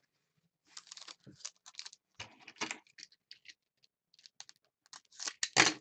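Crinkling and rustling of foil trading-card packs being handled by hand. It comes in short, irregular bursts, the loudest near the end.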